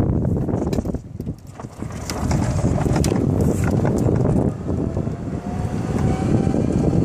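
Yamaha golf cart driving along a paved road, a steady rumble of running gear and tyres with wind on the microphone. The level dips briefly about a second in, and a faint rising whine comes in about five seconds in.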